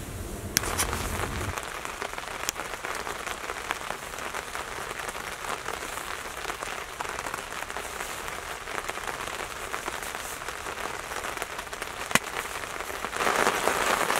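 Heavy rain pattering steadily, with a few sharper drip-like taps. A low rumble stops about a second and a half in, and the rain gets louder near the end.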